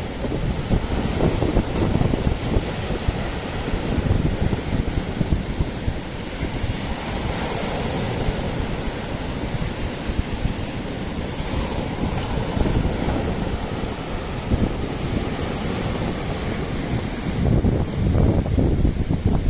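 Sea surf washing ashore in swells, with wind buffeting the microphone.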